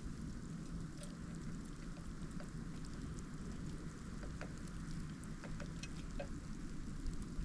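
Steady wind rumble of a snowstorm at the microphone, with scattered faint light ticks.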